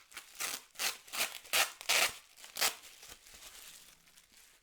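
Packaging being crinkled and torn open to unwrap a part, with a quick run of sharp crackles for about three seconds that then fade to a soft rustle.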